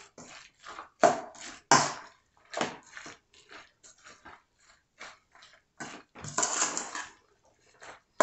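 A spoon stirring coleslaw in a stainless steel mixing bowl: irregular strokes of the dressed cabbage against the metal, with a longer run of stirring about six seconds in.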